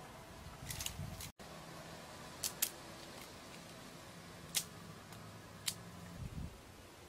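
Dry twigs snapping and cracking as they are broken by hand: a handful of short, sharp cracks spaced a second or two apart, with a low rustle of brushwood between them.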